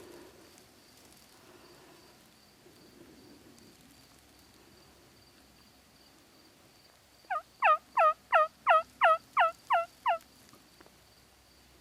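A series of nine loud turkey yelps, about three a second, beginning about seven seconds in, each note dropping sharply in pitch. A faint steady high buzz sits underneath.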